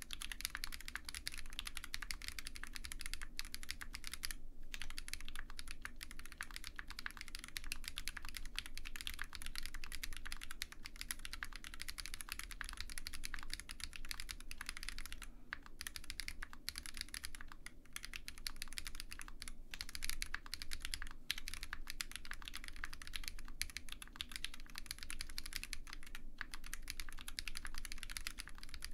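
Fast continuous typing on an OwLab Mr Suit custom mechanical keyboard with lubed Zaku switches, GMK ABS keycaps and a POM plate, built with case foam only. The keystroke clacks run densely together, broken by a few brief pauses.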